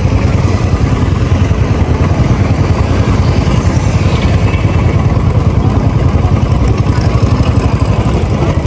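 Royal Enfield Classic 350 motorcycle under way, its single-cylinder engine running steadily beneath a loud, low, fluttering rumble.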